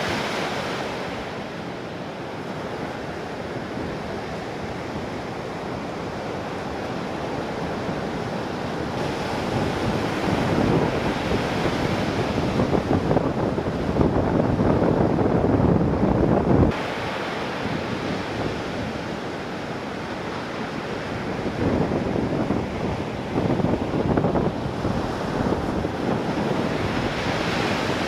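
Heavy typhoon-swell surf breaking and washing, with wind buffeting the microphone. The roar swells louder through the middle, drops off suddenly about two-thirds of the way through, then builds again near the end.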